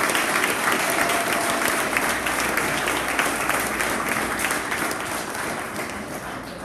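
A crowd of guests applauding, many hands clapping together. The applause slowly dies away toward the end.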